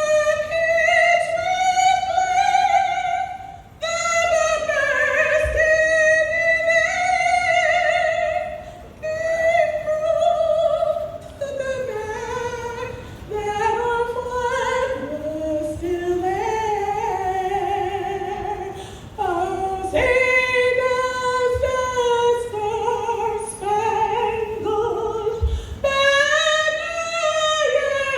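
A woman singing solo, one voice holding long notes that slide from pitch to pitch, with no accompaniment heard.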